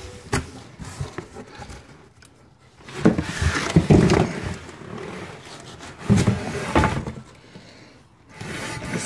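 Cardboard shipping box rustling and scraping, with a few knocks and handling noise, as a heavy 22-inch wheel is lifted and wrestled out of it. The noise comes in two rough spells, about three seconds in and again about six seconds in.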